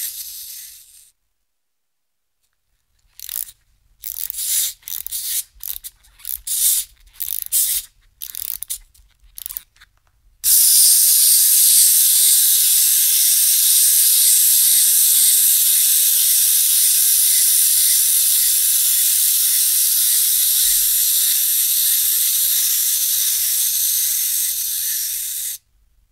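Wind-up toy being wound: irregular bursts of ratcheting clicks from the key for several seconds, then the released clockwork running with a steady high whir for about fifteen seconds before stopping suddenly.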